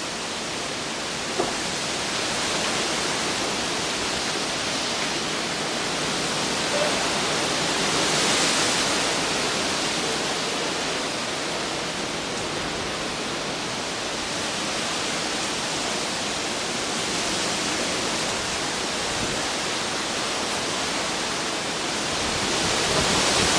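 Hurricane rain and wind: a steady rush of noise that swells and eases in gusts, with a single small click about a second and a half in.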